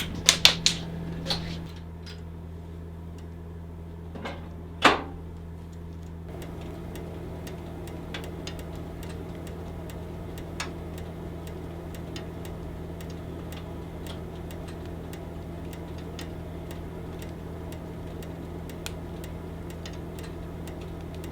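Wood fire crackling in the fireplace, with irregular sharp pops and snaps, one louder pop about five seconds in, over a steady low hum.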